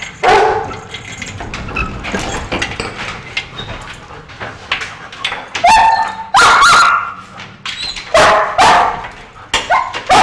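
German shepherd dogs barking: one bark at the start, then a run of loud barks in the second half.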